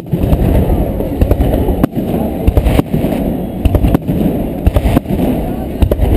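Aerial firework shells bursting overhead in quick succession: sharp bangs every second or so over a continuous low rumble of the display.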